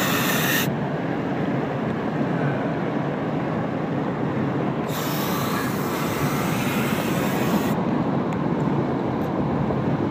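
Steady road rumble inside a moving car, with a can of compressed-air duster sprayed in a loud hiss at the very start and again for nearly three seconds from about the middle.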